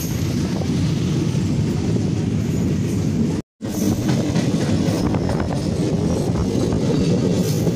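Passenger train running along the line, heard from a coach window: a steady rumble of wheels on the rails. The sound drops out briefly about three and a half seconds in, then the same running noise carries on.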